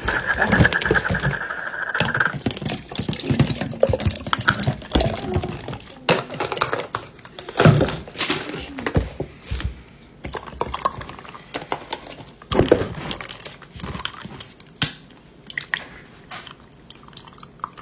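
Cold brew coffee poured from a bottle into a glass mason jar full of ice, with short knocks and clinks of bottle, jar and ice. Near the end, creamer is poured into the jar.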